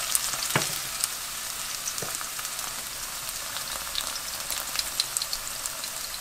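Sliced garlic and scallion sizzling in oil in a nonstick wok: a steady hiss with scattered small crackles, and a couple of light knocks in the first two seconds.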